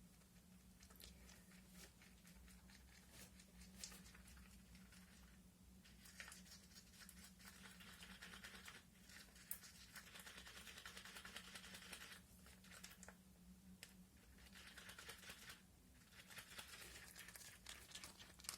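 Faint scraping and clicking of a stick stirring silver powder into tinted epoxy resin in a cup, in stretches with short pauses, over a low steady hum.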